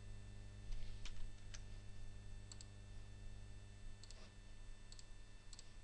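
Computer mouse button clicks: about half a dozen sharp clicks, several in quick pairs, over a steady low electrical hum.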